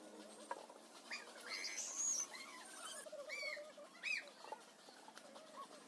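Birds chirping: a scatter of short, high, arched chirps, several close together.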